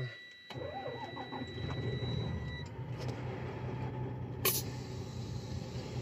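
Freightliner Coronado's Detroit Diesel Series 60 12.7-litre inline-six cranks and starts about half a second in, then idles steadily, heard from inside the cab. A steady high-pitched tone sounds until about two and a half seconds in, and there is one sharp click a little past the middle.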